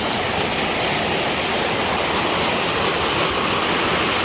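Water of a mountain valley stream rushing steadily and loudly.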